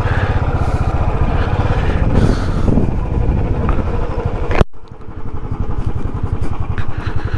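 Single-cylinder motorcycle engine running with a steady low pulse; just past the middle the sound drops out suddenly for a moment, then carries on a little quieter.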